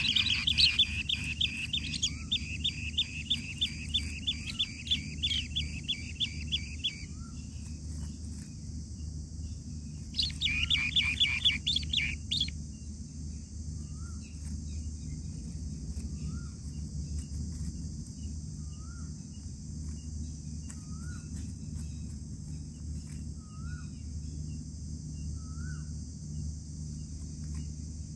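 Bee-eater nestlings chirping in rapid, loud trills: one spell lasting several seconds, then a second, shorter spell about ten seconds in. After that only faint short rising peeps come, about every two seconds, over a steady high insect drone.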